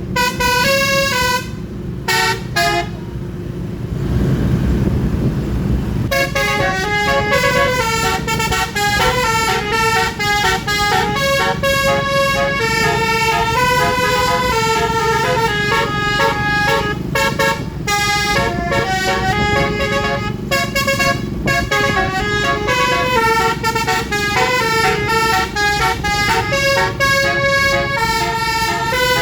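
Basuri musical vehicle horn playing a tune in stepped, held notes, telolet style, almost without a break. About two seconds in, the horn stops for roughly three seconds and a rushing rumble fills the gap.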